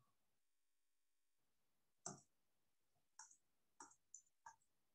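Faint computer mouse clicks, about five scattered through the second half, over near silence: clicking through the taskbar input-language menu to switch to the Korean keyboard.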